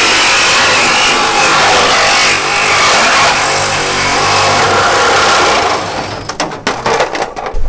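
Power tool cutting through the car's rear sheet-metal body, a loud steady hiss-and-whine of metal being cut, which breaks off about six seconds in into choppy, uneven noise.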